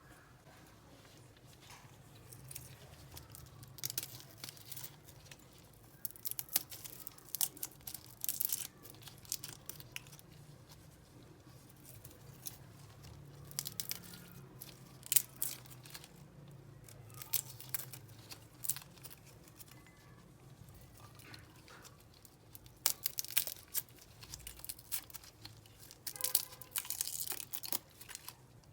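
Food being prepared by hand: irregular clusters of crisp tearing and crackling sounds a few seconds apart, over a faint low hum.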